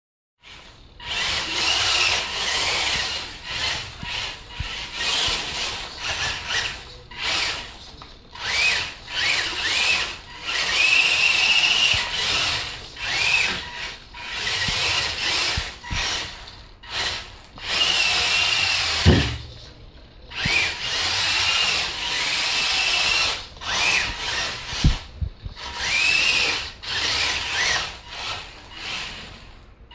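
Redcat Racing Sumo RC 1/24-scale monster truck's electric motor and drivetrain whining in repeated short bursts of throttle, the whine rising and falling in pitch, while its Scotch-taped tires slide on a hardwood floor. Two sharp thumps, one about two-thirds of the way through and another near the end.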